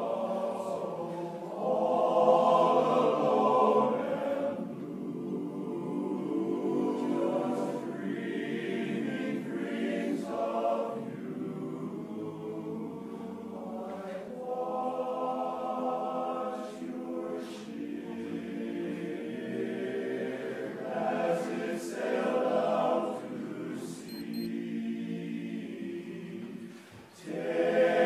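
Men's barbershop chorus singing a cappella in close four-part harmony, swelling loud about two seconds in and dropping away briefly just before the end before coming back in strongly.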